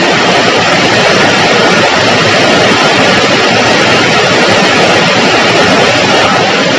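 Rain falling, a loud steady hiss with no breaks.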